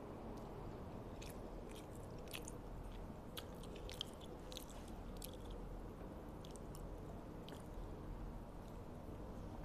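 Close-miked mouth sounds of a person chewing soft instant fried noodles: scattered wet clicks and smacks, most of them in the first half, over a steady low background hum.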